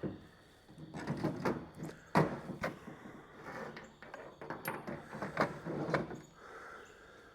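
Carburetor, carburetor pan and tools being handled on a work surface: irregular knocks, clicks and scrapes, the sharpest knock about two seconds in.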